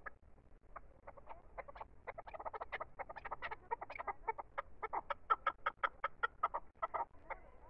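Caged chukar partridge calling: a run of short clucking notes that quickens and grows louder, most regular and loudest about five to seven seconds in, then breaks off.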